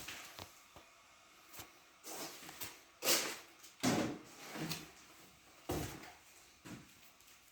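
A series of scattered knocks and scraping sounds from objects being handled, loudest about three seconds in.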